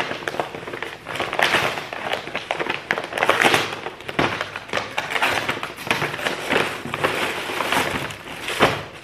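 A mail package being torn open and its wrapping handled, with irregular crinkling and crackling rustles throughout.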